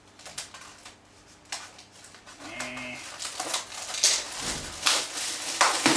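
Cardboard box and packaging being opened and handled: scattered clicks and knocks, then louder rustling bursts in the last couple of seconds.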